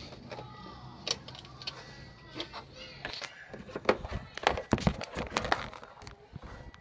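Irregular clicks, taps and knocks of tools and parts being handled, thickest in the second half.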